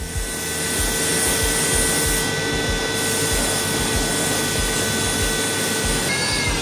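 Steam cleaner with built-in vacuum extraction working over fabric seat upholstery: a steady motor whine under a hiss, the hiss easing briefly about two seconds in. About six seconds in the motor's pitch starts to fall as it winds down.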